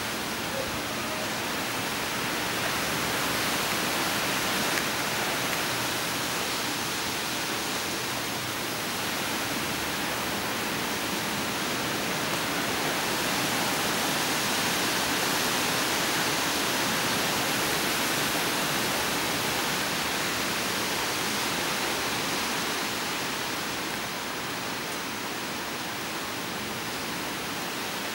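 Steady hiss of wet snow falling through leafy trees, swelling a little midway.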